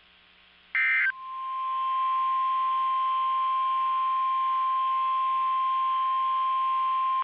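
A brief warbling SAME digital data burst from NOAA Weather Radio about a second in. It is followed by the Weather Radio's 1050 Hz alert tone, one steady pure tone that swells up over about a second and then holds level. This is the attention signal that comes before a new alert message.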